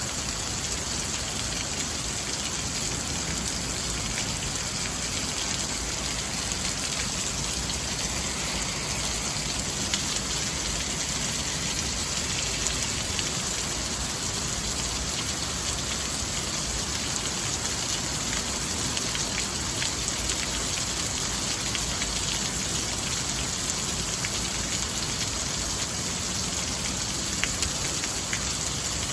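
Very heavy rain pouring down, a steady dense hiss with a few sharper drop ticks standing out.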